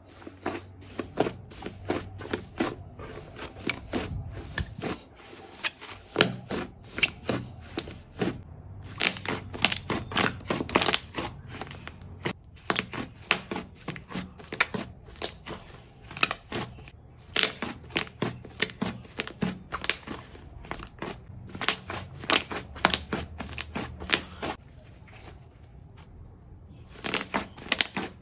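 Slime being squished, poked and stretched by hand, giving rapid sticky clicks and pops, several a second. There is a short pause near the end before the popping resumes.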